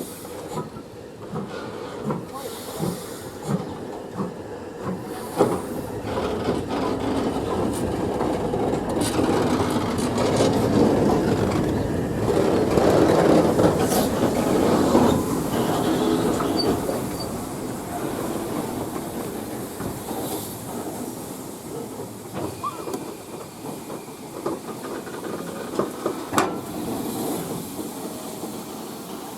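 Heritage steam train running past: wheels clicking over the rail joints, with a hiss, growing loudest about halfway and then fading away.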